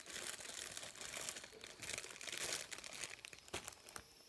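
Packaging crinkling and rustling in irregular bursts as it is handled and rummaged through, with a couple of sharper clicks near the end.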